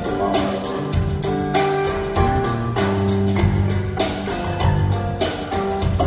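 Rock band playing live: a drum kit keeps a steady beat under held bass and other instrument notes.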